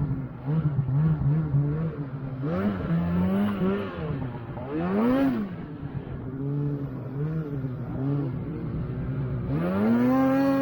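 Snowmobile engine revving up and easing off again and again as the sled is ridden, with a long climb in pitch near the end.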